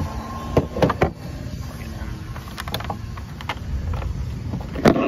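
Knocks and clatter of discarded furniture boards and a TV being moved by hand, a few sharp knocks early on, more in the middle, and the loudest clatter near the end, over a steady low rumble.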